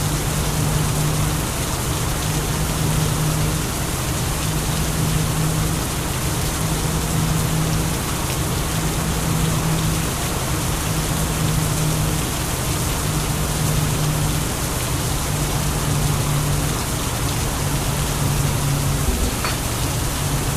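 Heavy rain falling steadily, with a deep hum underneath that breaks off briefly every couple of seconds.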